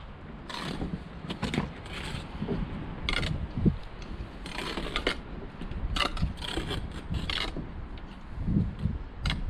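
Irregular scraping and knocking of bricklaying work: a trowel scraping mortar and stone blocks being handled and set on the wall, with one sharper knock about three and a half seconds in.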